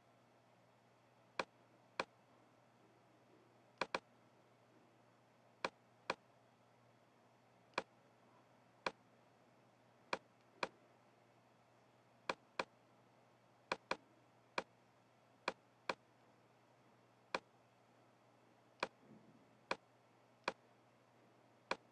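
Computer mouse clicking: about twenty short, sharp clicks at irregular intervals, some in quick pairs like double-clicks, over a faint steady low hum.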